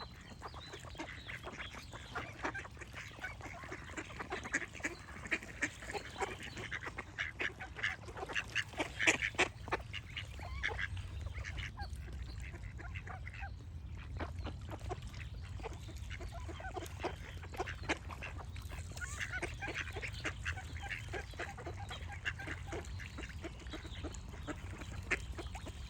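Ducks quacking in rapid runs of short calls, busiest about a third of the way through, with a brief lull near the middle before the calling picks up again.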